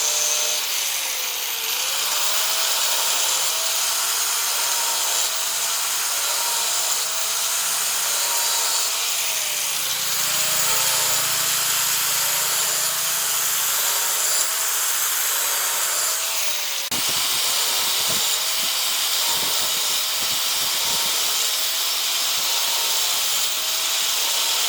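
Electric power tool running steadily against metal or wood, with a continuous abrasive hiss and a faint tone that dips and rises about once a second. The sound changes abruptly about two-thirds of the way through.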